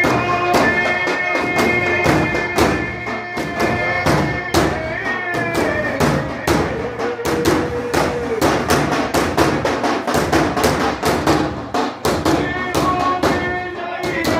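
Sufi sama music: daf frame drums struck in a quick, steady beat under long held melodic tones.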